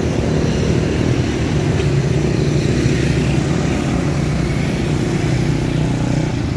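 Street traffic: the small engines of motorcycle taxis running close by, a steady engine hum.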